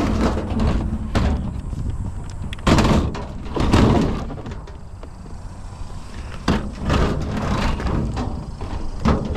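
Scrap metal being handled and loaded: a series of separate clanks and thumps a second or more apart, over a low steady rumble.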